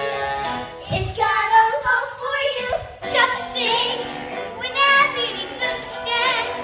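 Children's voices singing a stage-musical song over musical accompaniment: a held chord at first, then sung phrases with vibrato from about a second in.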